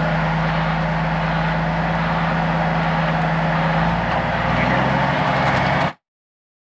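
Loaded dump truck's diesel engine running on the move, with road and wind noise; the engine note changes about four seconds in. The sound cuts off suddenly near the end.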